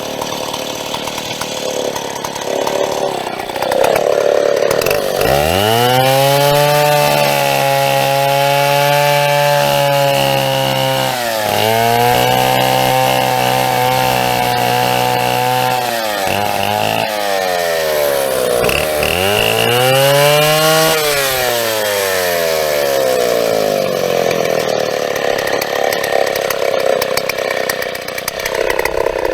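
Large two-stroke chainsaw cutting through a birch log. The engine pitch sags several times as it bogs under load in the cut, then climbs back up.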